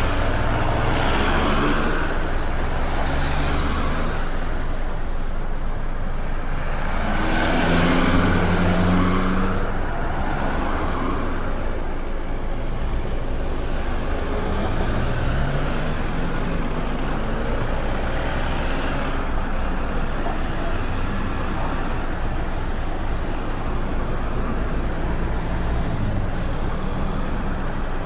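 Busy street traffic: a continuous stream of cars and heavier vehicles passing, with engine drone and tyre noise. Louder passes come near the start and about eight seconds in.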